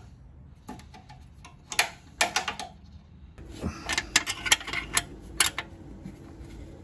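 Irregular sharp metallic clicks and clinks of a 13 mm closed wrench fitting onto and working a bolt in a cramped spot behind a motorcycle's rear fender, a few around two seconds in and a denser run from about three and a half to five and a half seconds.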